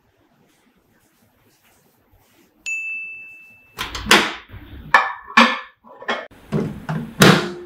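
A single steady electronic beep about a second long, then a run of several loud knocks and clatters, like a microwave oven door and its contents being handled.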